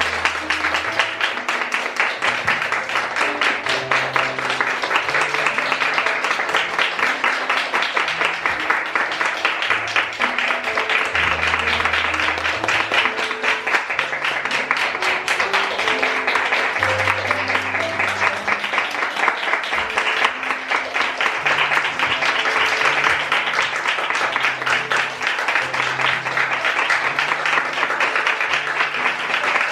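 Audience applauding steadily over music with a moving bass line.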